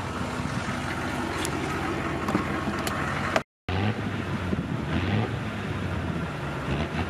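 Chevy pickup's engine running at low speed, with a steady low engine hum under wind and road noise. The sound cuts out for a moment about three and a half seconds in, then the engine hum comes back stronger.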